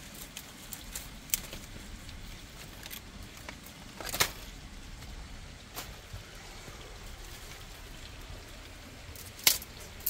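Dry twigs and sticks crackling and snapping as they are pulled out of a pile by hand: scattered light cracks, with two louder snaps about four seconds in and near the end.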